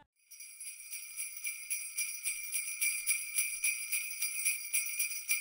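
Jingle bells shaken in a steady, even rhythm, their high ringing starting a fraction of a second in after a brief silence.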